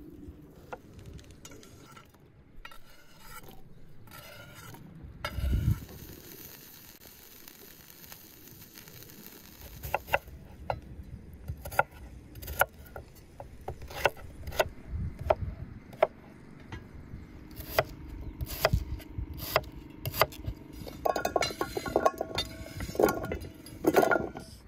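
A kitchen knife cutting raw potatoes on a wooden cutting board: irregular sharp knocks of the blade on the board, with a dull low thump about five seconds in. Near the end the cut pieces are scraped off the board into an enamel bowl with a cluster of louder knocks and clinks.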